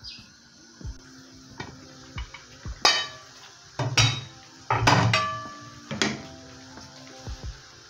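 Metal cooking pots and lids clanking as they are handled on the stove: a series of knocks and clanks, some ringing briefly, loudest from about three to six seconds in.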